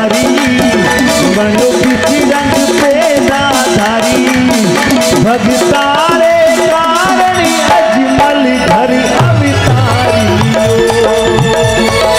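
Live Rajasthani devotional bhajan music: a man's singing voice over harmonium, keyboard and a steady dholak drum beat.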